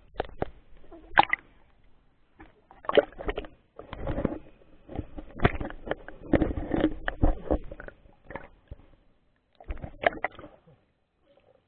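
Muffled knocks and sloshing as water and a swimmer's body bump and rub against an action camera's waterproof housing, in irregular bursts that stop about a second before the end.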